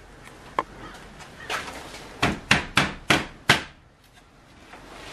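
A single click, then five sharp knocks in quick succession, about three a second, as hands work at a car's plastic front bumper by the licence plate.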